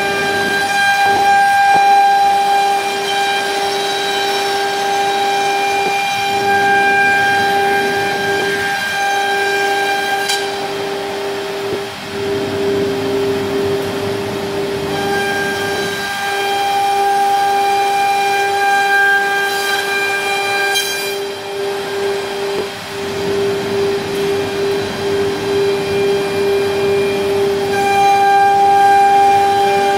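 Nesting CNC router's HSD spindle running at speed as it cuts a wood panel: a loud, steady whine, with a higher cutting tone above it that drops out twice for several seconds and returns.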